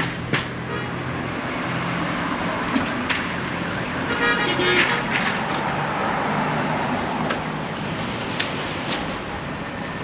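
Street traffic with car engines running and passing, and a short car horn honk about halfway through. A few sharp clicks come and go over the traffic.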